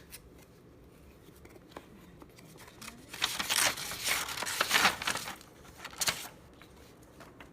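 Packaging being torn open and crinkled: a rough tearing rustle starting about three seconds in and lasting a couple of seconds, then one shorter tear about six seconds in.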